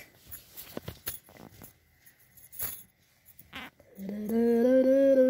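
Faint rustles and light taps as handkerchief dolls are handled. About four seconds in, a person's voice starts humming one long, slightly wavering note.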